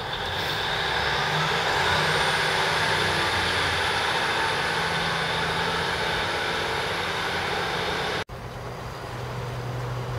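Diesel multiple unit's engine running hard, with a high whine rising over the first couple of seconds, then holding steady. It cuts off abruptly about 8 seconds in, and a lower steady hum follows.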